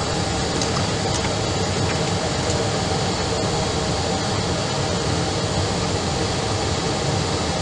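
Steady, even rush of an Airbus airliner's jet engines and cabin air system at taxi power, heard from inside the aircraft.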